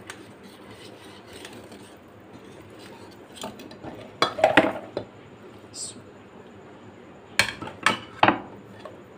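Wire hand whisk clinking and scraping against a stainless steel bowl while mixing flour into wet batter, with a quick cluster of sharp clinks about four seconds in and three more knocks near the end.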